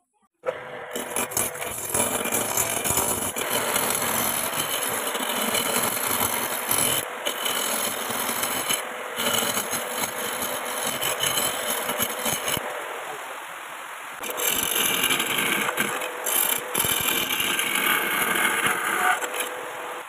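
A home-built wood lathe starts suddenly about half a second in and runs, while a steel chisel cuts a square block of ulin (Borneo ironwood) round: a loud, continuous scraping of tool on hard wood that swells and eases as the chisel is pressed in.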